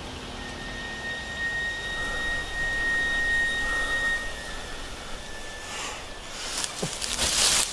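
Film sound design: a steady high-pitched tone held for several seconds and fading out, then a rising whoosh of noise that swells near the end and is the loudest sound.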